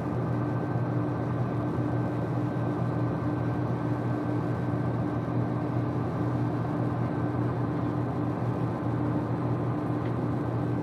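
Boat engine running steadily at cruising speed, a constant low drone with a steady higher tone above it, over the wash of water and wind.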